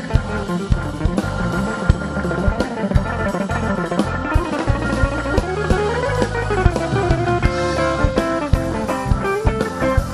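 Live instrumental band music: an acoustic guitar plays a melodic line over bass guitar and a drum kit keeping a steady beat.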